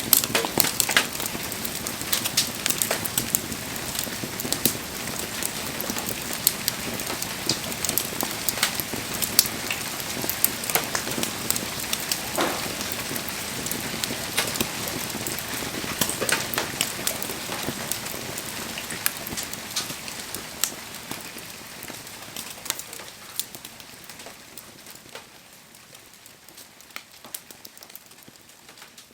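Firewood campfire crackling, with frequent sharp pops over a steady hiss; the sound fades out gradually over the last ten seconds.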